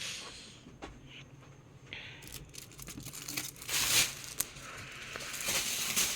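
Rustling and crinkling handling noises with a few sharp clicks, with two louder rustles in the second half.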